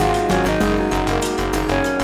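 Background music with a steady beat and sustained keyboard-like notes.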